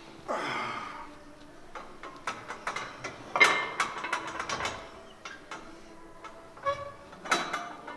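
Heavy barbell bench press: the lifter's forceful, noisy breaths, about half a second in, at three and a half seconds and near the end, over a run of sharp clicks and clanks from the loaded bar and plates.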